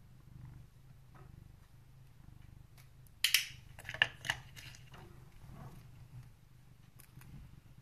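Nail clippers cutting a cat's claws: one loud sharp snip a few seconds in, then two quicker clicks close together, over a faint steady low hum.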